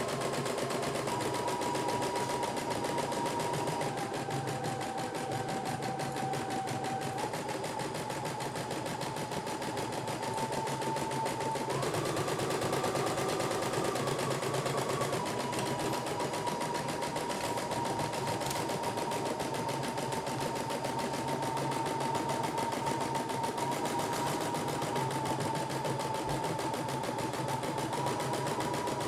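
CNY E960 portable embroidery machine stitching a design: a steady, rapid machine clatter under a motor whine whose pitch steps up and down every few seconds.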